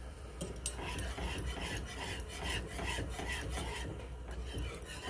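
Wire whisk stirring thick sausage gravy in a metal skillet, scraping the pan in repeated strokes that begin about half a second in.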